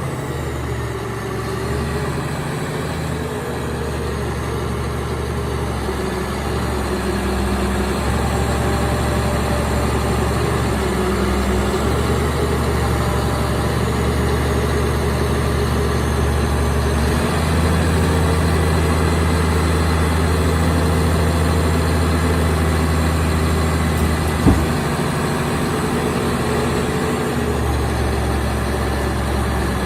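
Caterpillar D7G2 bulldozer's six-cylinder diesel engine idling steadily; its note grows heavier about 17 seconds in and shifts again near the end, with a single sharp knock about 24 seconds in.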